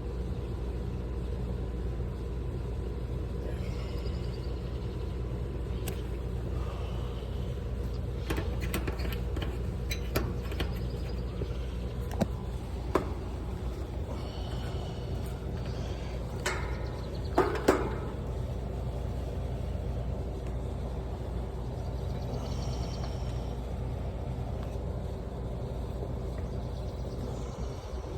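HVAC outdoor unit humming steadily, with a few sharp metallic clicks and knocks and one louder brief rattle partway through. The unit's 40/5 µF dual run capacitor tests weak, only 23 µF on the 40 µF compressor side.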